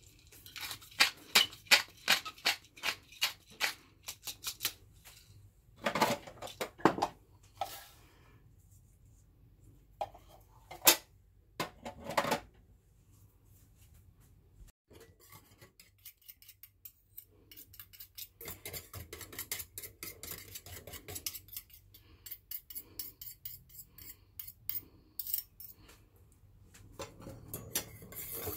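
A metal kitchen utensil clicking and scraping against cookware while a sauce is mixed. A quick run of sharp clicks comes first, then a few louder strokes, then a long run of lighter, faster taps in the last third.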